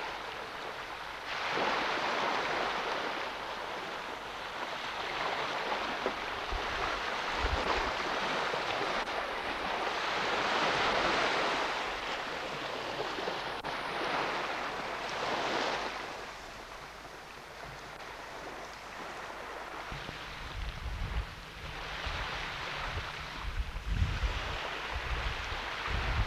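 Small waves washing on a sandy shore, a hiss that swells and eases in slow surges. Wind buffets the microphone with a low rumble in the last several seconds.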